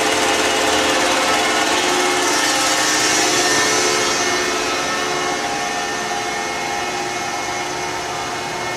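Steady hum of running machinery, several constant tones over a broad hiss. A higher hiss swells about two seconds in and fades by about four and a half seconds, after which the whole sound drops a little in level.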